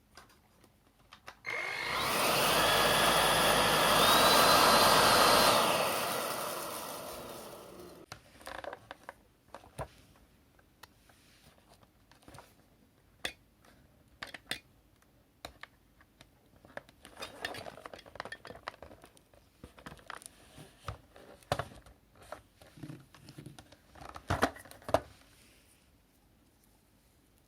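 MOOSOO K17 cordless stick vacuum switched on, its motor running with a high whine that steps up in pitch, then switched off and winding down over a couple of seconds. This is followed by a long series of scattered clicks and knocks of the unit being handled.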